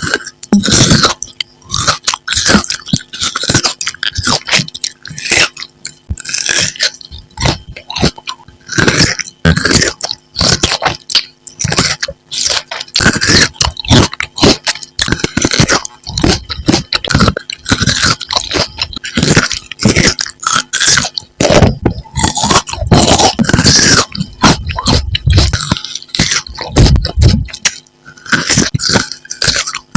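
Close-miked chewing and crunching of candied fruit, with many quick irregular smacks and mouth noises.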